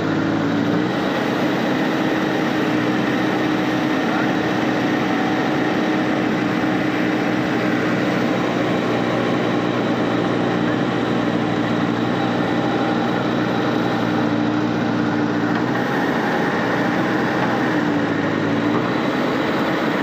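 JCB backhoe loader's diesel engine running steadily under working load, heard from the operator's cab as the backhoe arm digs. The engine note shifts briefly just after the start and again near the end.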